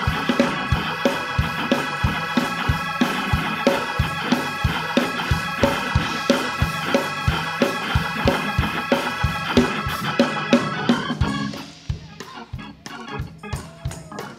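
Organ playing sustained chords over a fast, steady percussive beat. About eleven to twelve seconds in, the organ chords drop away and the sound falls quieter, leaving scattered hits.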